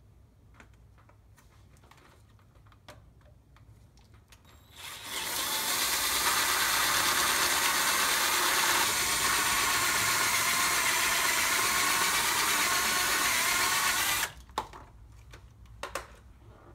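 Cordless drill with a 3/8-inch bit drilling out a brake rotor rivet at the wheel hub. It starts about five seconds in, runs steadily for about nine seconds and stops abruptly. A few light clicks and knocks come before and after it.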